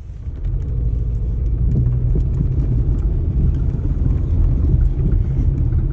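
2004 Toyota Corolla engine and drivetrain heard from inside the cabin, pulling away under acceleration with a low rumble that grows louder about half a second in. The car is shaking as it takes off, a shudder the driver likens to knocking.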